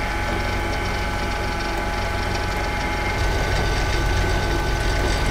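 Benchtop combination lathe-mill running a 1/4-inch end mill that cuts slots into aluminum plate: a steady motor and gear whine over the rough chatter of the cut. It gets a little louder and deeper about three seconds in.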